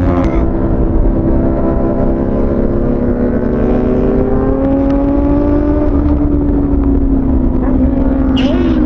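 Kawasaki ZX-6R inline-four engine running, its pitch slowly rising and easing off with a brief drop near the end, over a low rumble.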